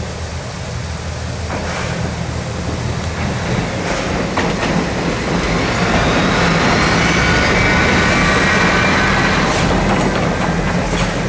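A Mooka Railway diesel railcar pulling out of the station and passing close by, its engine and wheels on the rails growing louder to a peak a few seconds in. Near the middle its wheels squeal on the rails.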